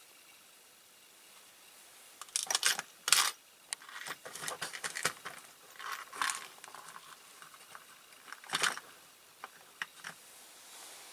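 Small metal parts and rivets clinking and rattling as they are handled and sorted on a workbench, in several irregular bursts with sharp clicks, the loudest a little over two seconds in and again past eight seconds.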